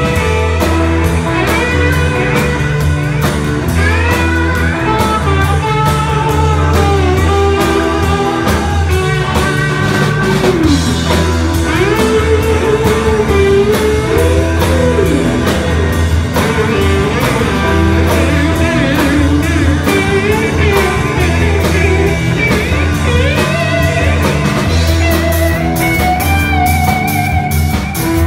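Live blues-rock band playing: an electric guitar lead with bending notes over bass guitar and drums.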